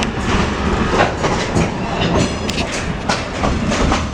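Railroad train running along the track, with a steady rumble and repeated sharp clicks of wheels passing over rail joints, heard riding on board.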